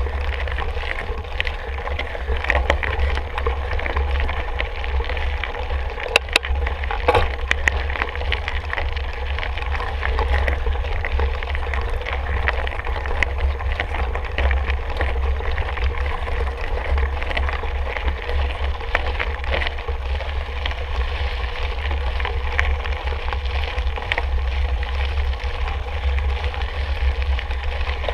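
Mountain bike being ridden, with steady wind rumble on the microphone over the noise of tyres and rattles on the trail, and a few sharp knocks about six to seven seconds in.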